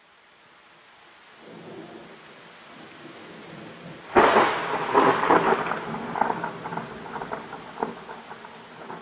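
Hot cooking oil sizzling in a pan for frying shrimp flour cakes. A faint hiss grows over the first seconds, then a loud burst of sizzling starts suddenly about four seconds in and settles into steady crackling.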